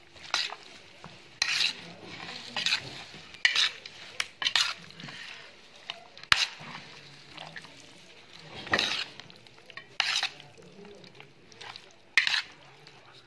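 Yogurt-and-spice-marinated chicken pieces being mixed with freshly added cooking oil in a metal tray: wet squelching strokes in an irregular rhythm, with a few sharp clicks.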